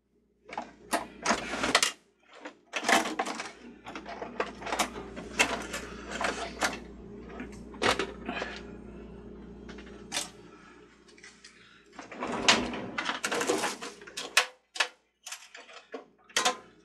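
Clicks, knocks and rattles of the plastic parts of a Mr. Christmas Merry-Go-Round Carousel being handled and taken apart by hand, over a steady low hum that stops about fourteen and a half seconds in.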